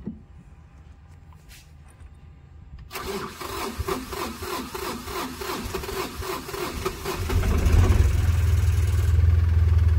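Mahindra Supro Maxi Truck engine cranked on the starter for about four seconds, then catching about seven seconds in and running steadily, much louder. It starts now that a new camshaft position sensor is fitted and the cut sensor wiring is repaired.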